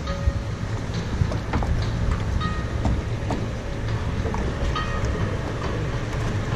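Log flume ride machinery running with a steady low rumble, with scattered light clicks and short clanks over it.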